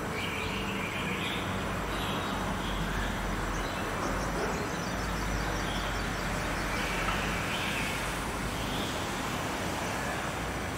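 Steady background noise with a low hum, with faint short high chirps now and then.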